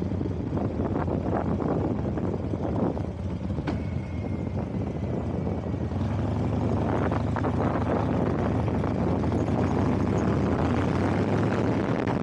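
A vehicle running on the road, with a steady low engine hum under road and wind noise, and a single short click a few seconds in.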